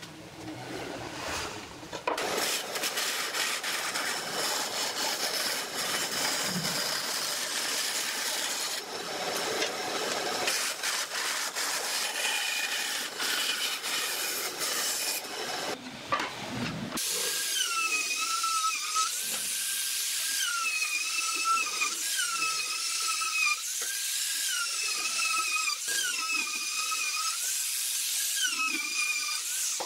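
Electric power tools working wood. First comes a stretch of rough, noisy cutting or sanding. About halfway through, a small motor's high whine takes over, sagging in pitch and recovering again and again, roughly once a second, as it is loaded into the wood.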